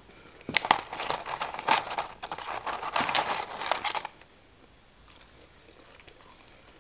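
Paper and cardboard food packaging crinkling and rustling as it is handled, a dense crackle of small clicks that stops abruptly about four seconds in.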